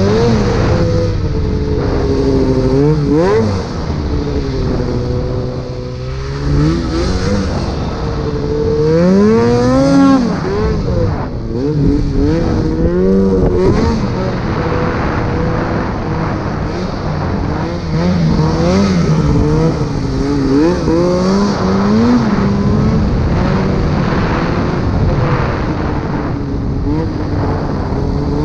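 Two-stroke mountain snowmobile engine being ridden through deep powder, its revs rising and falling over and over with the throttle.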